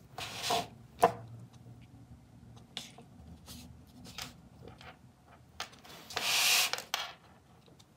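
A hand and an acrylic brush pen rubbing and dabbing on a black cardboard box blank. There is a short brushing rub near the start, then a sharp click about a second in, then scattered small taps, then a longer, louder rub about six seconds in.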